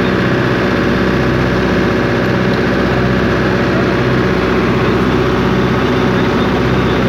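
Engine idling steadily: a constant, even low drone that does not change.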